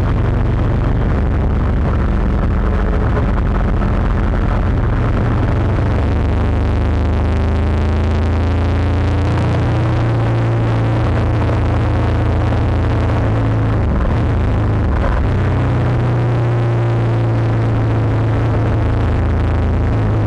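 Motorcycle engine running at road speed under steady wind rush, heard from a camera riding on the bike. The engine note shifts about nine seconds in and again around fifteen seconds in.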